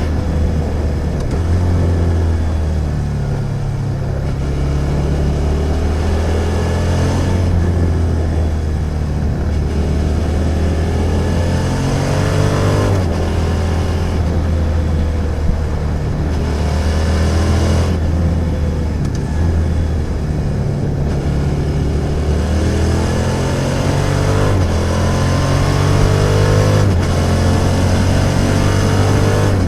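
Suzuki SV650's V-twin engine under way, accelerating and easing off again and again, its pitch climbing through the gears and dropping back.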